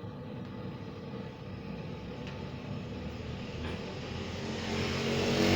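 A motor vehicle engine running past, its steady rumble growing louder near the end.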